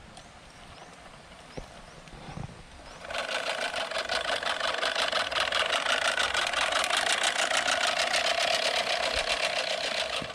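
Manual push reel lawn mower being pushed across the lawn: its spinning reel blades make a steady whirring with rapid, even clicking as they cut the grass. It starts about three seconds in and stops abruptly just before the end.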